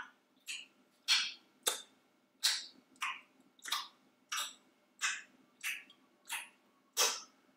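A person chewing loudly with the mouth open: wet lip-smacking chews repeated evenly about every two-thirds of a second, a dozen or so in all.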